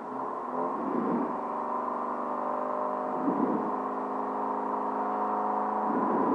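Rally car engine heard from inside the cabin, held at raised revs on the start line. The engine note steps up about half a second in and surges briefly three times.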